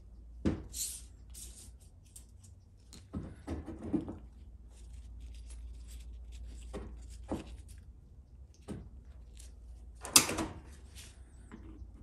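Transmission servo parts being handled on a workbench: scattered clicks and knocks as the low reverse servo piston, spring and small metal pieces are picked up and set down, with the loudest knock about ten seconds in.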